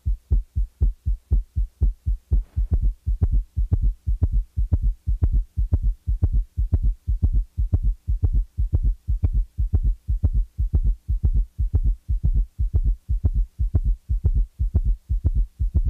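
Heart sounds at a rapid heart rate with a summation gallop: S3 and S4 merge into one loud extra sound in diastole, midway between the second sound and the next first sound. The result is a fast, even run of low thuds in a galloping rhythm.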